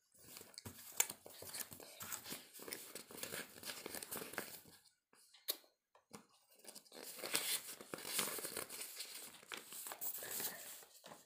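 Sheets of paper rustling and crinkling as they are handled, in two stretches with a brief lull between; the second is louder.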